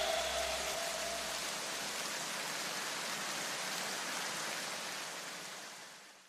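The end of an electronic background music track: its last notes ring away in the first second and a half, leaving a steady hiss of noise that fades out near the end.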